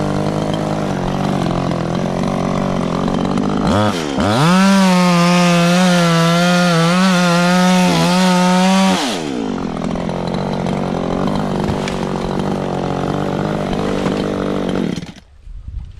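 Echo CS-3510 two-stroke chainsaw idling, then revved to full throttle about four seconds in and held there for about five seconds before dropping back to idle. Near the end the engine is shut off.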